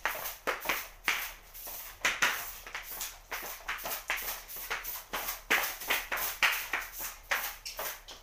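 A broom sweeping a tiled floor in short, repeated swishing strokes, about one to two a second, some louder than others.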